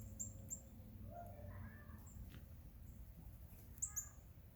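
Birds calling faintly: a few short, very high falling chirps near the start and a pair near the end, with fainter lower calls in between.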